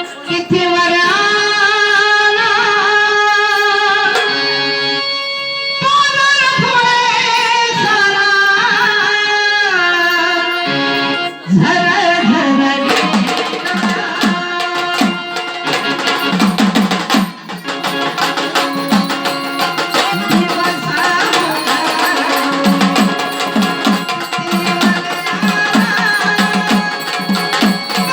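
Gondhal folk music: an electronic organ plays a melodic introduction, and about eleven seconds in the sambal drums and percussion come in with a fast, dense rhythm under the melody.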